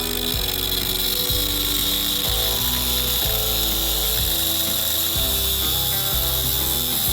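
Cordless mini grinder with a cut-off wheel cutting into a 3/4-inch metal pipe, making a steady high grinding hiss, with background music playing along with it.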